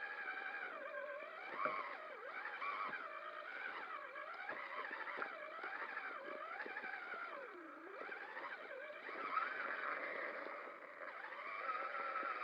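Electric motor and gearing of a Traxxas Summit RC truck whining, the pitch rising and falling constantly with the throttle, with a few short knocks from the chassis.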